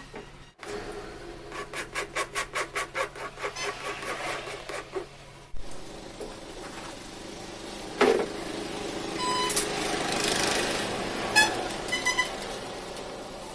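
Hand rasp scraping rubber in a run of even strokes, about three a second: the inner tube's surface is being roughened around the valve spot so the new valve base can be glued. Afterwards comes a single knock, then scattered clinks and rustling of tools.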